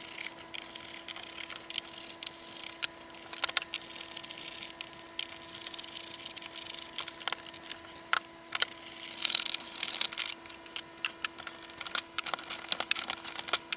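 Small screws being backed out of a plastic instrument case with a hand screwdriver: scattered clicks, ticks and scrapes of the driver, screws and plastic parts. Near the end, 18650 lithium-ion cells are handled. A faint steady hum runs underneath.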